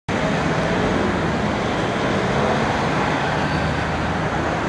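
Street traffic noise: a steady wash of road noise with a low engine hum under it, cutting in suddenly at the start.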